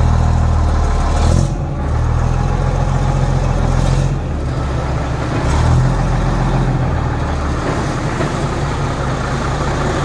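1961 Mack B-61's Thermodyne 711 diesel engine idling steadily, with its note shifting slightly a couple of times.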